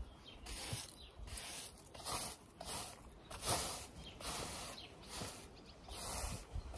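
Push broom with stiff bristles sweeping grit and dust across a paved patio, a run of short scraping swishes at about one to two strokes a second.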